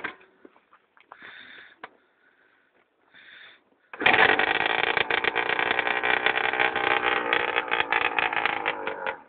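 An engine running loudly and steadily, with a fast pulsing beat. It starts suddenly about four seconds in and cuts off just before the end, after a few faint clicks.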